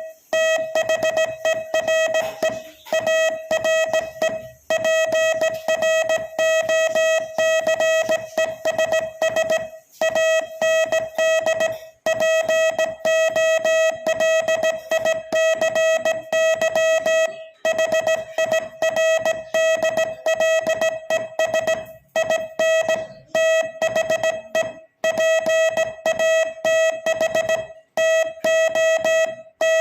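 Morse code keyed at slightly above 20 words per minute: one steady mid-pitched tone switched rapidly on and off into dots and dashes, with brief pauses every few seconds.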